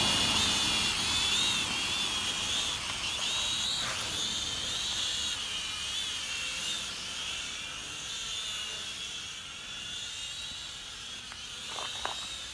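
Propel Maximum X11 quadcopter's small electric motors and propellers whining in flight. The pitch wavers up and down as the throttle changes, and the sound slowly grows fainter.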